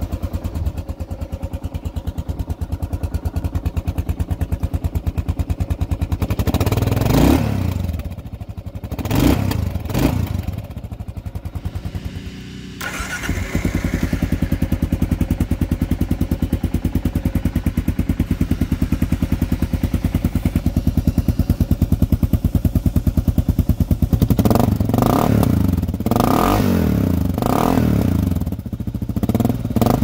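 2015 Kawasaki KLR650 single-cylinder four-stroke engine idling through its stock exhaust, revved twice about a third of the way in. Then, after a cut, the same engine idling through a Lexx MXe aftermarket slip-on muffler, revved several times in quick succession near the end.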